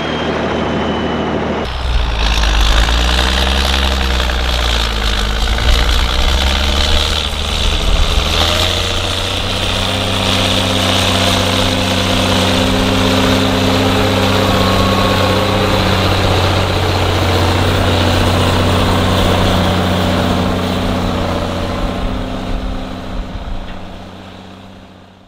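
Ford TW-25's six-cylinder turbo diesel, on a straight-through exhaust, working under load pulling a subsoiler. The engine note wavers up and down for the first several seconds, then holds steady, and fades away near the end.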